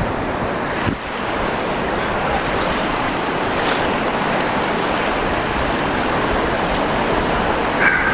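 River rapids rushing steadily as the kayak drifts towards the whitewater, with some wind on the microphone.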